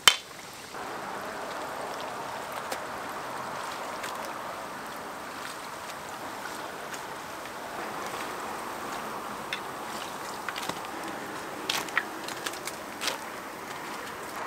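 Twigim (Korean battered fried food) sizzling steadily in a deep fryer of hot oil, with a sharp click just before the sizzle sets in and a few louder crackles near the end.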